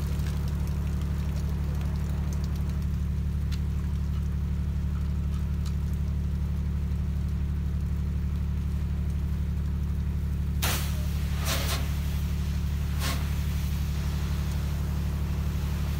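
A soft-wash rig's motor drones steadily and low, with a few short bursts of spray about two-thirds of the way through.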